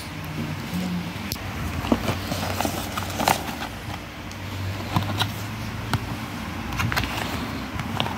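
Handling noise: several scattered clicks and taps as small tools and a cardboard box are picked up and set down on a cloth-covered surface, over a steady low hum.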